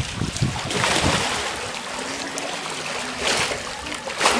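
Pool water splashing and sloshing as people thrash and wrestle in it, with a few louder splashes, the biggest near the end.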